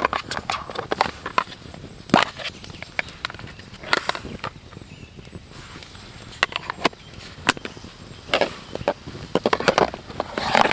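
Irregular sharp clicks and clacks of camp cookware being handled and unfolded, with a wood fire crackling in a small metal fire box.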